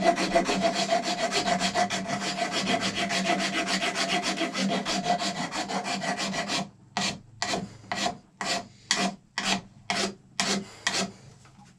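A rasp filing down the thick base of a raw horn. It starts with quick, short back-and-forth strokes, and about two-thirds of the way through changes to slower separate strokes, about two a second.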